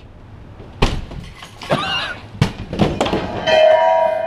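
A door being forced in by heavy blows: several sharp, loud impacts at uneven intervals, the last ones close together. Near the end a steady pitched tone is held.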